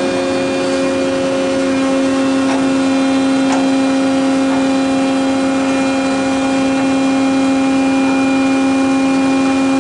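The tube expander's hydraulic power unit, a 20 HP electric motor driving a Vickers pump, runs with a steady hum of several tones over a noisy whir. One tone drops out about two seconds in.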